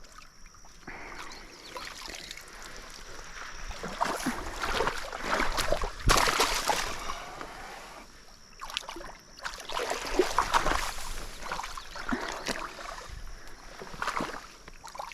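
Irregular splashing and sloshing of water in bursts, loudest about four to seven seconds in, as a large channel catfish thrashes while being landed.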